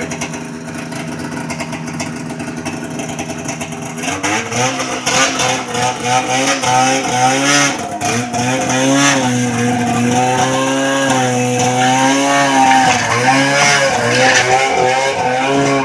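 Snowmobile engine idling steadily, then from about four seconds in revving up and down in uneven surges as the sled is driven up onto a trailer.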